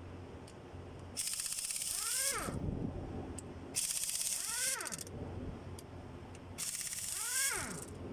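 Air-powered tool run in three short bursts, each a loud hiss of air with a fast rattle, winding down with a falling whine each time the trigger is let go.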